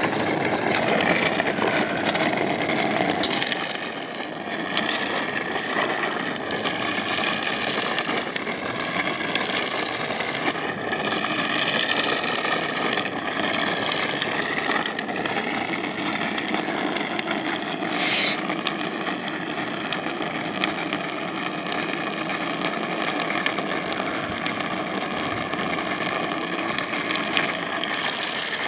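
Drift trikes rolling and sliding down asphalt: a steady rough rumble of hard plastic rear wheels on the road, with a faint wavering whine. A brief sharp hiss about two-thirds of the way through.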